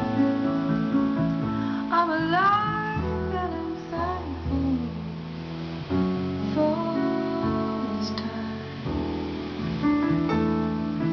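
A woman singing in phrases over strummed acoustic guitar: recorded music played through a restored QUAD 44 preamplifier and QUAD 405-2 power amplifier and heard from the loudspeakers.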